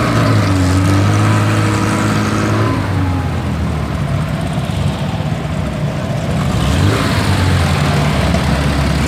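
Classic race car engines running. One is held at steady revs and then eases off over the first three seconds. Engine revs rise again about seven seconds in.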